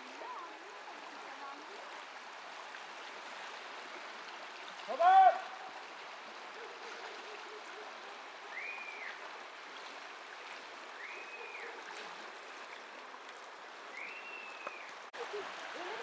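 Köprüçay River water flowing steadily. A loud, brief cry comes about five seconds in. Three whistle-like calls, each rising and falling, follow later.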